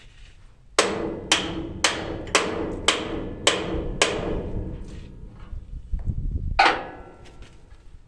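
Steel being struck at a grain dryer's chain drive: seven sharp blows about half a second apart, each ringing briefly, then a low rumble and one last strike near the end.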